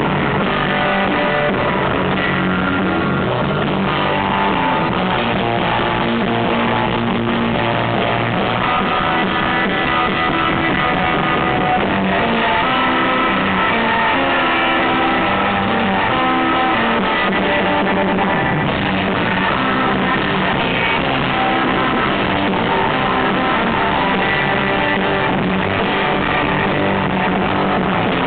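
Live surf rock, loud and unbroken, led by a Fender Stratocaster electric guitar playing a dense run of notes.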